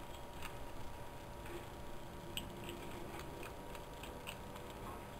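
Computer keyboard keys clicking as text is typed slowly, single keystrokes at irregular intervals.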